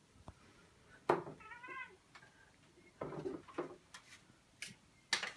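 Domestic cat giving one short, wavering meow about a second and a half in, with several short knocks and scuffs around it as it swats at darts with its paw.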